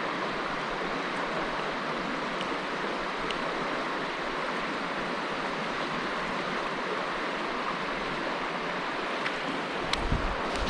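Mountain stream water rushing steadily. Near the end come a few light clicks and a low bump.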